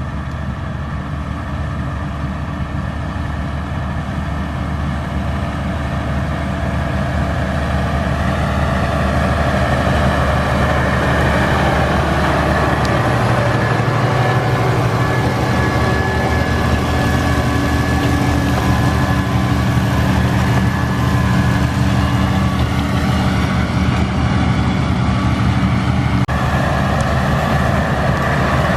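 Heavy farm machinery engine running steadily, getting louder over the first ten seconds as it comes closer, then holding a steady note.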